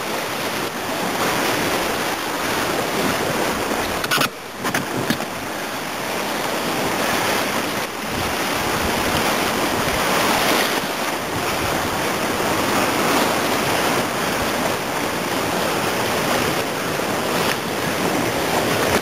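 Rushing whitewater of a river rapid, a steady loud roar of churning water heard from a paddle raft, with wind buffeting the microphone. A brief dip with a few sharp knocks or splashes comes about four to five seconds in.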